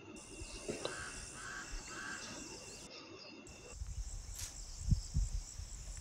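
Outdoor evening ambience: insects chirring steadily at a high pitch, with a bird giving a few short repeated calls in the first couple of seconds. After a cut about halfway through, a low rumbling noise on the microphone comes in with a couple of stronger gusts.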